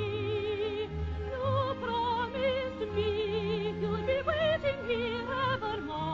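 Soprano singing long held notes with wide operatic vibrato over a string orchestra accompaniment.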